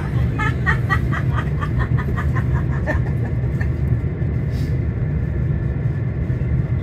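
Cabin sound of a Volvo B5LH hybrid double-decker bus running, a steady low rumble of drivetrain and road. Over the first three seconds a rapid run of short high pips sounds, about four a second.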